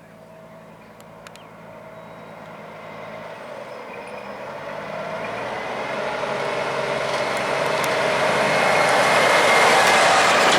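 Heavy truck approaching: engine and tyre noise build up steadily and grow much louder as it draws near.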